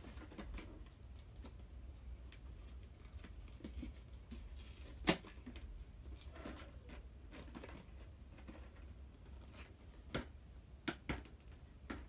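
A small cardboard toy box sealed with tape being picked and pried at by hand: quiet scratching and crinkling of tape and packaging, with scattered clicks, a sharp snap about five seconds in and a few more clicks near the end.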